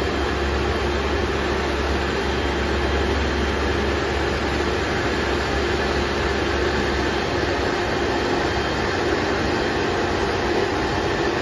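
Shotcrete spraying rig running while it sprays concrete onto rock: a loud, steady rushing noise from the spray nozzle over the machine's running drone. A low hum in the drone cuts out about seven seconds in.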